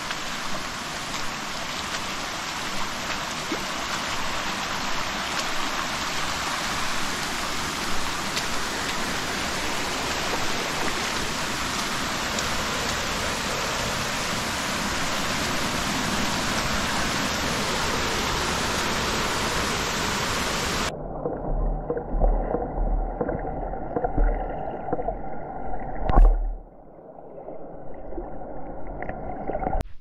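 Shallow creek water rushing over a smooth rock slab, a steady, loud rushing. About two-thirds of the way through it cuts off suddenly, and quieter irregular low thumps and one sharp click follow.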